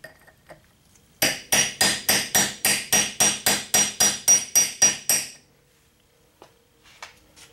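Hand hammer striking a steel tool set against the seized front axle bushing of a Ford 8N tractor, about fifteen quick blows at roughly three and a half a second, each with a bright metallic ring, to break loose a bushing galled in the axle. A few faint taps follow near the end.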